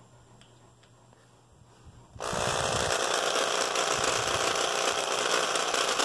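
Electric hand drill running steadily as its bit drills out the rivet post on the underside of a die-cast toy car. The drill starts about two seconds in, after a quiet pause.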